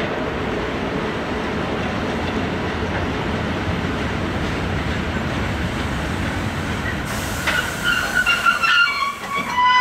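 Hr1 steam locomotive and its train moving through a station with a steady rumble. Over the last two seconds or so the wheels give a string of short, high-pitched metallic squeals.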